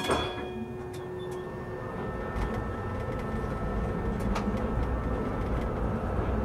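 Tram heard from the driver's cab as it moves off from a stop: the low rumble of wheels on rails builds and grows louder, with a thin steady electric whine from the drive and a few sharp clicks.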